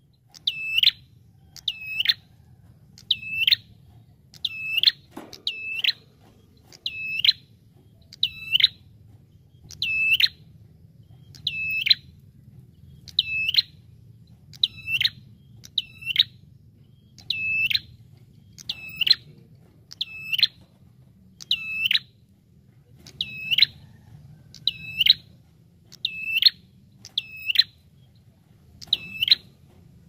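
Rufous-headed tailorbird (prenjak) calling over and over, one loud, sharp note about every second, each note dipping quickly in pitch. A faint low hum sits underneath.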